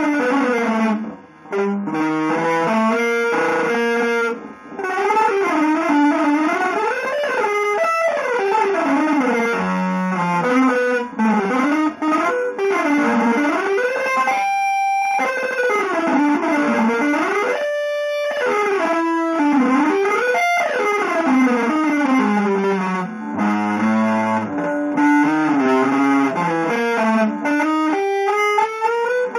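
Electric guitar playing fast lines of notes that sweep up and down in pitch. There are two brief breaks in the first few seconds and a couple of longer held notes about halfway through.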